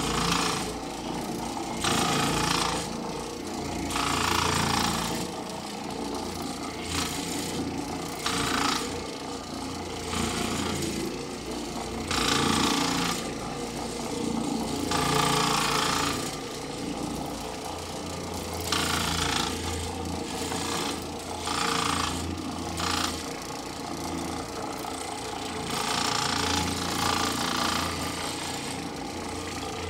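Oreck orbital floor machine running on carpet with a rattling vibration, its hum swelling louder every couple of seconds as it is swept back and forth. The rattle comes from loose Phillips-head screws on its base and centre drive.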